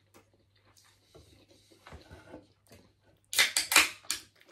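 Soft-drink can being opened: a few loud, sharp cracks with fizzing from the carbonated drink, a little over three seconds in, after faint handling and eating noises.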